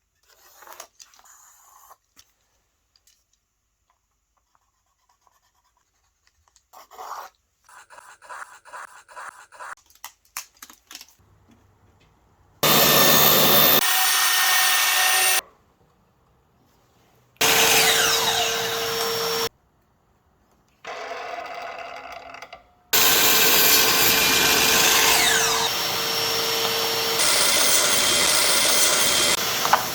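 Power tools working wood, running loud in several separate bursts of a few seconds each, the first starting about halfway through. Before them come lighter clicks and scrapes of hand work.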